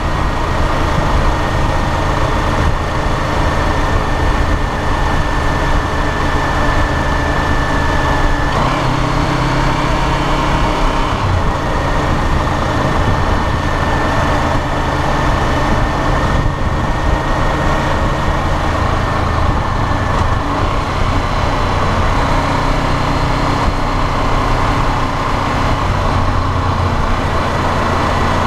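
Honda CBR500R's parallel-twin engine running under way at city speed, heard through a tank-mounted camera. The engine note changes about eight and a half seconds in, then runs on steadily while the bike slows a little.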